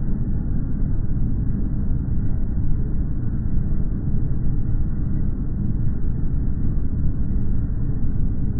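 Outdoor background sound from a phone recording, slowed to a tenth of its speed and heard as a steady, deep, noisy rumble.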